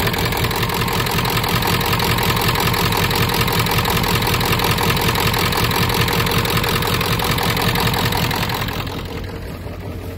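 Ford 7.3 L Powerstroke turbo-diesel V8 idling steadily with an even diesel clatter, heard up close under the open hood; it grows quieter about nine seconds in as it is heard from farther off. The high-mileage engine, which had missed on a few cylinders while starting, now sounds good.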